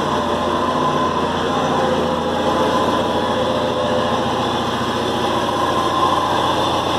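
2004 Fiat Palio Fire's engine running steadily in gear, turning the raised front wheel so it spins freely in the air.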